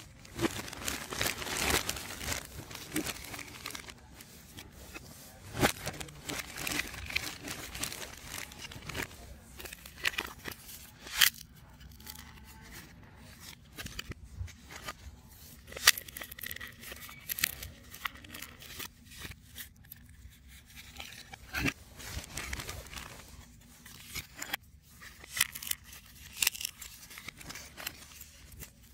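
3D puzzle pieces being handled, separated and fitted together by hand: an uneven rustling with many scattered sharp clicks and snaps.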